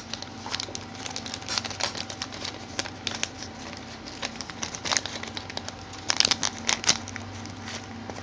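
Plastic wrapping crinkling and crackling as fingers pick it open to free a small LED bulb, with the sharpest crackles about six to seven seconds in.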